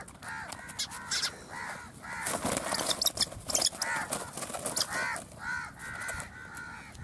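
Harsh, caw-like bird calls repeated over and over, several a second. About two to four seconds in there are bursts of wing flapping and rustling as a shikra caught in a bal-chatri noose trap thrashes on the wire cage.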